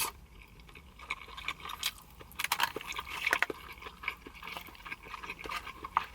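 A person chewing a mouthful of creamy penne pasta close to the microphone, with many irregular soft wet clicks.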